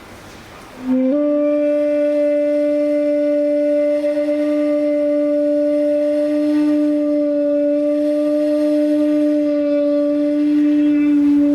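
A single long note on a wind instrument: it slides up slightly as it starts about a second in, then holds one steady pitch for about ten seconds before stopping near the end.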